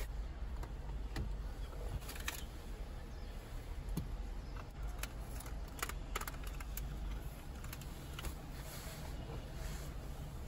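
Scattered sharp clicks and light knocks of hard plastic parts being handled against a car dashboard: an aftermarket screen and a trim housing being moved and set in place, over a steady low rumble.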